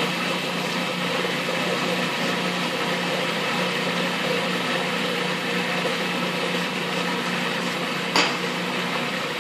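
Food processor motor running steadily with a constant hum, pureeing hummus while olive oil is drizzled in through the feed tube. A single sharp knock near the end as the glass jug is set down on the stone counter.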